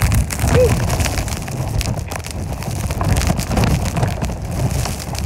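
Strong wind buffeting the microphone in a snowstorm: a heavy low rumble that swells and falls with the gusts.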